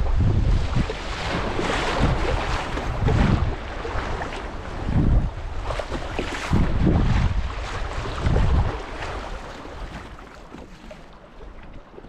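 River water rushing and splashing over a rocky riffle around a moving kayak, with wind buffeting the microphone in surges every second or two. The rushing fades over the last few seconds as the water calms.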